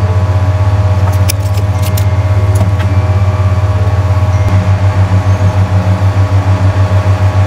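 A loud, steady low electrical hum from the repair bench, which starts pulsing at about five beats a second halfway through. A few faint clicks come in the first few seconds.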